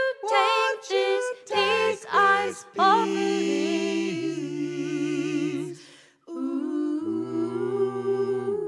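Music: layered singing voices with vibrato in several short phrases, then a held chord that fades out about six seconds in. A new held, hummed vocal chord starts just after.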